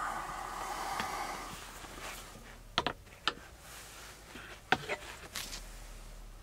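Fabric curtain rustling as it is pulled back from a small camper window, followed by a few sharp clicks and knocks, the loudest about three-quarters of the way through.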